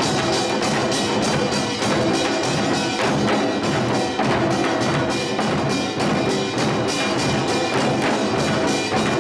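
Samulnori ensemble playing: kkwaenggwari small gongs, janggu hourglass drums, buk barrel drum and jing gong beating a fast, steady rhythm of dense strokes.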